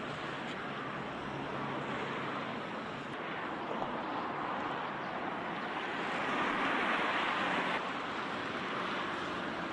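Steady city road traffic noise, the mixed hum of many cars and buses. It swells louder about two-thirds of the way through, then drops back suddenly.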